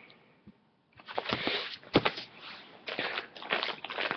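Package wrapping rustling and crinkling as items are handled and unwrapped by hand. It starts about a second in after a short lull, with many sharp crackles.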